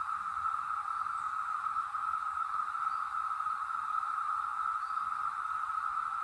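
Chorus of Brood X periodical cicadas: a steady, droning whir of one even pitch that does not rise or fall.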